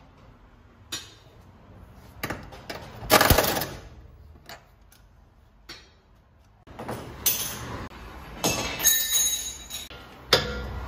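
Metal hand tools and car parts clinking and knocking in a workshop: a handful of separate sharp strikes, the loudest about three seconds in, then a busier stretch of metallic clatter and rattling in the last few seconds.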